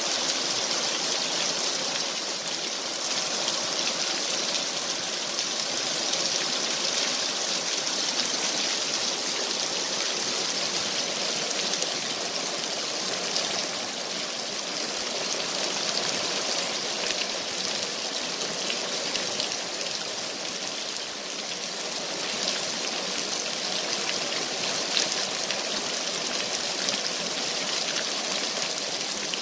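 Heavy rain falling steadily, a continuous hiss of downpour on wet pavement and vehicles.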